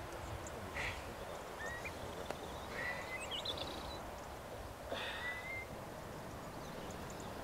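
A few short whistled bird calls, one rising and wavering near the middle, over a steady low background rumble.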